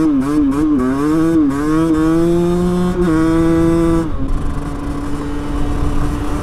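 Small supermoto motorcycle engine accelerating under the rider, its pitch wavering at first and then climbing. About four seconds in the throttle closes, leaving a steady lower engine tone under wind rush.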